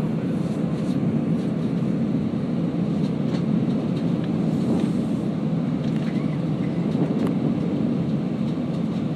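Jet airliner cabin noise from a window seat on landing approach: a steady low rumble of engines and air rushing past the fuselage, with a few faint ticks.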